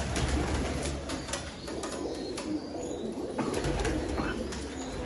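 Flock of domestic tippler pigeons cooing together in a continuous low murmur, with a few short wing flaps.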